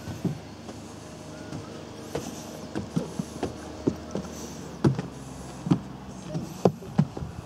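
Footsteps on wooden steps and boards: a string of irregular hollow thuds, about one every half second to a second, the loudest near the middle and end.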